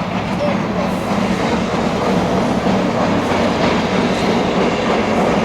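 Freight train cars rolling past on the rails, a steady loud rumble and rattle of wheels on track.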